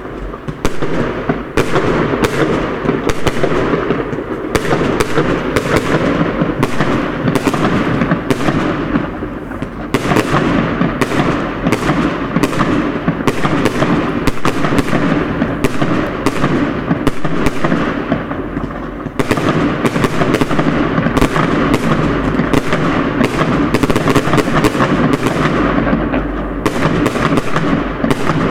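Fireworks going off without a break: a dense barrage of bangs and crackling from aerial shells and fountains bursting, easing only slightly a couple of times.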